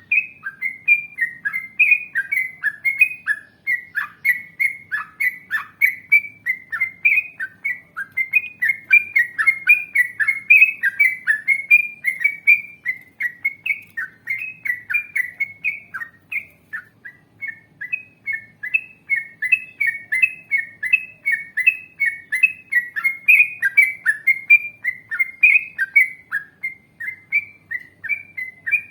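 Yellow-vented bulbul singing continuously: a long, unbroken run of quick whistled notes, about three or four a second, many of them dropping sharply in pitch.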